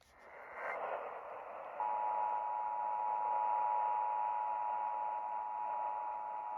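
Emergency Alert System two-tone attention signal (853 Hz and 960 Hz together) over a radio receiver: a band of radio hiss fades in, then about two seconds in the steady dual tone starts and holds, marking the start of an EAS test.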